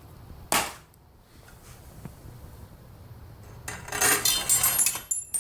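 Small metal parts clinking and rattling as they are handled, with a brief rustle about half a second in and a cluster of ringing clinks near the end.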